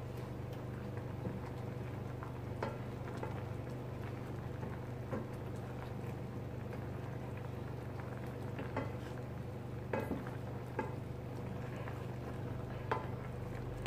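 Cream sauce simmering in a stainless steel saucepan while a wooden spoon stirs it, with scattered light knocks of the spoon against the pot over a steady low hum. The sauce is being boiled down to thicken it.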